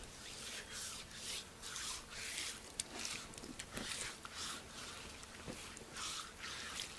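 Quiet, repeated rubbing swishes, roughly one or two a second, over a faint steady hum.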